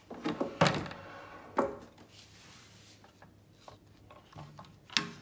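Knocks and scraping from handling the Philips PM3217 oscilloscope's opened case and removed back cover: a few sharp clunks, the loudest about half a second in, another a second later and one near the end.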